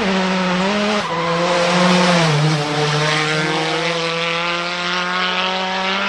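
Turbocharged Nissan SR20 four-cylinder in a Mazda RX-7 FD3S drift car, fitted with an external wastegate screamer pipe. It is held at high revs while the rear tyres spin and squeal in a drift. The engine note dips slightly a little past two seconds in, then holds steady and loud.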